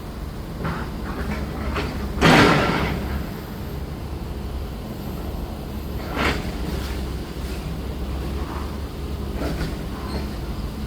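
Demolition of a building: heavy machinery running steadily under a loud crash of falling debris about two seconds in, a smaller crash about six seconds in, and scattered clattering.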